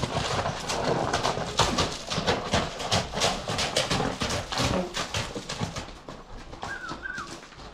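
A stallion's hooves clattering in many irregular sharp knocks. A short high chirp comes near the end.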